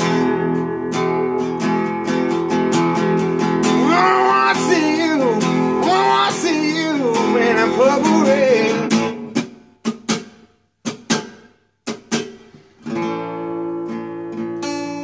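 Acoustic guitar strummed in sustained chords while a man sings a sliding, wavering vocal line for a few seconds in the middle. About two-thirds of the way in, the playing breaks into a few sharp single chord strikes with silences between them, and steady strumming resumes near the end.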